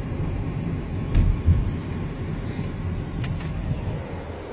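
Steady road and engine rumble inside a moving car's cabin, with two low thumps about a second in.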